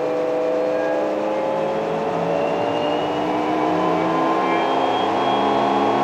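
LG front-loading washing machine spinning its drum up toward maximum spin speed (around 1400 RPM) in the service test's top-speed step, with the drain pump running. It is a steady mechanical whir with whining tones that climb slowly in pitch as the drum accelerates.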